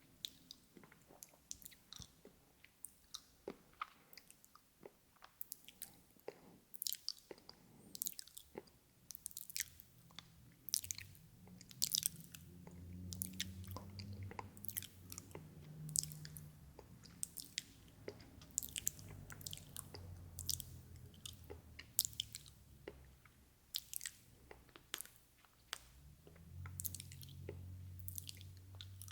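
Mouth sounds made for ASMR: rapid, irregular wet clicks and smacks of the tongue and lips. A low rumble sits underneath for stretches in the middle and near the end.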